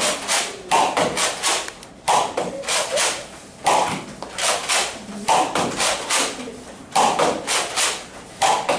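Nerf Rival blaster firing foam balls in quick succession: sharp pops and smacks in small clusters about once a second, the balls hitting and bouncing off the targets and floor.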